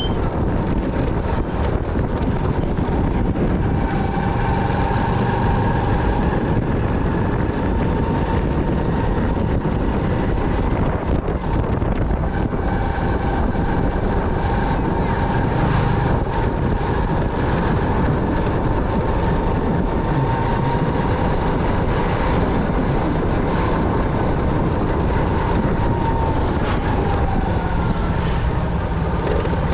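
Motorcycle riding on the road: steady engine and road noise with wind buffeting the microphone, and a thin steady whine running through it that dips in pitch near the end.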